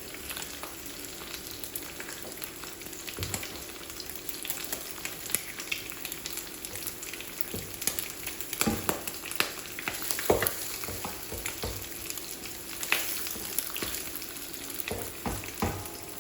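Bacon and eggs frying together in a pan: a steady sizzle with many small pops and crackles, and a few louder knocks.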